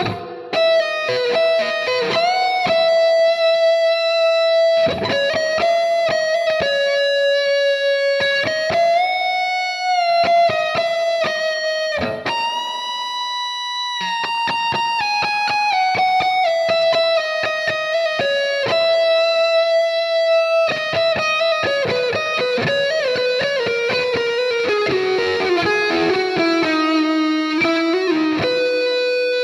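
Electric guitar playing a lead solo line of sustained single notes with full-step string bends and vibrato. In the second half the notes step steadily downward in a run.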